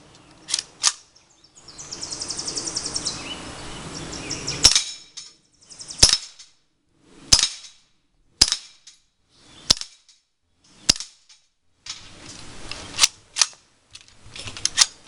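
Suppressed Century Sterling Sporter, a semi-automatic 9mm carbine with a short barrel, fired in single shots. There are about eleven shots, mostly a second or more apart, with two quick pairs.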